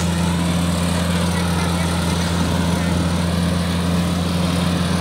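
Compact rice combine harvester's engine running steadily, a constant low drone with no change in pitch or level.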